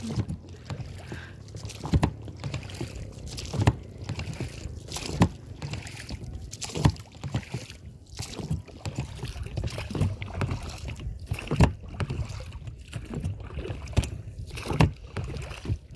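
Inflatable rowboat being rowed: a short knock and a swirl of water with each oar stroke, about once every one and a half seconds, over water lapping against the boat.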